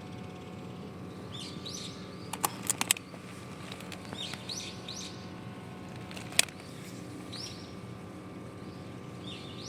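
Birds chirping in short calls every couple of seconds over a steady hum, with three sharp clicks in quick succession about two and a half seconds in and one louder click about six seconds in.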